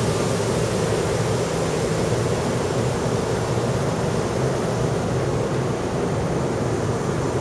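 Steady ambient noise on an offshore drilling rig's deck: a constant hiss with a low hum beneath it, unchanging throughout.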